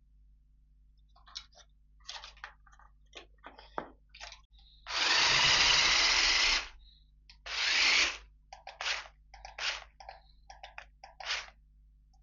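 Small electric motor whirring in bursts: scattered light clicks first, then a loud burst of nearly two seconds about five seconds in, and shorter stop-start bursts after it.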